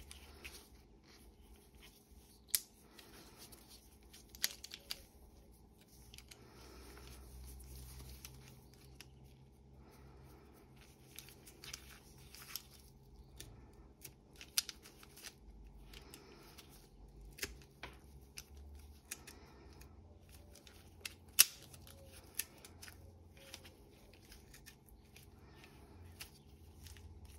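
Old Gardena bypass secateurs, their blade blunt, snipping at a thin twig: a series of short sharp snips and clicks as the blades close, the loudest about two-thirds of the way through, with quieter rustling and handling between them.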